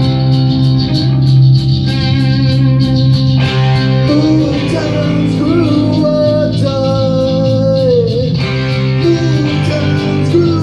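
Punk rock band playing live: distorted electric guitars, bass and drums with a steady cymbal beat, and a singer's voice coming in over the band about four seconds in.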